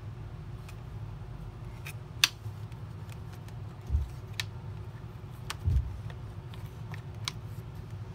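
Hard plastic parts of a Dyson DC40 vacuum being handled and fitted together by hand: scattered sharp clicks and snaps, the loudest about two seconds in, with a couple of dull knocks near the middle, over a steady low hum.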